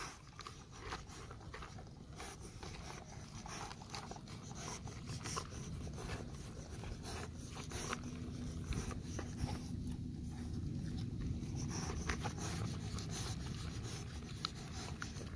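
Dog eating cooked rice off a plastic tray up close: a busy run of quick, irregular licking and chewing clicks as its tongue and teeth work against the plastic.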